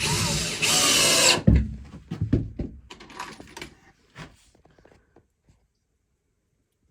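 A power tool runs in two short bursts, then knocks and clatter of things being handled.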